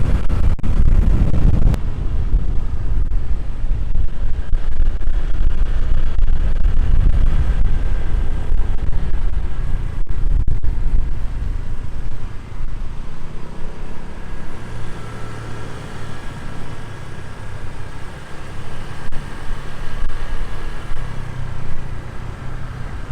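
Motorbike on the move: the engine running under heavy wind rumble on the microphone, loudest in the first half and easing somewhat after about twelve seconds.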